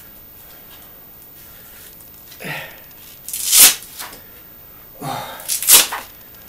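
Two forceful breaths from a lifter at the bench press, each a short voiced grunt followed by a sharp hissing exhale, about two and a half seconds apart.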